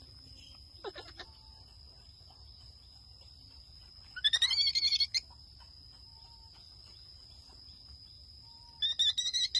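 Baby monkey giving high-pitched squeaking calls in quick strings: one burst about four seconds in lasting about a second, and another near the end. A steady high whine runs underneath.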